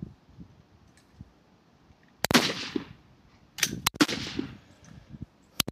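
Rifle shots on a high-power rifle firing line: four sharp cracks, one about two seconds in with a long echoing tail, two close together near the middle, and one near the end.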